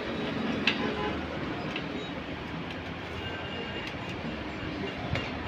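Steady rumbling background noise with two sharp clicks, one about a second in and one near the end.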